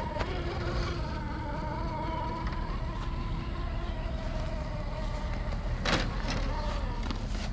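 Electric whine of the Axial Unimog 6x6 RC crawler's Hobbywing Quicrun Fusion brushless motor as it drives, the pitch dropping at first, then holding steady and shifting with the throttle. A brief noisy burst comes about six seconds in.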